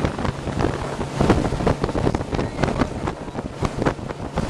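Wind buffeting the microphone on a boat under way, over a steady low motor hum and the rush of water.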